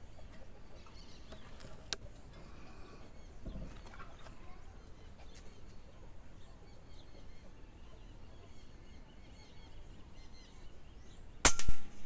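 A PCP air rifle, a P35 carbine with a tuned Fiora barrel, fires a single shot near the end: a sharp crack, then a second short crack a moment later. Before it there is only a faint outdoor background with a light click about two seconds in.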